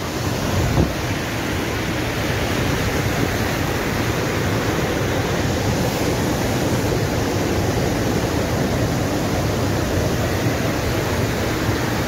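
Steady rushing roar of a large waterfall in full flow, swollen by a night of heavy rain, with a brief bump just under a second in.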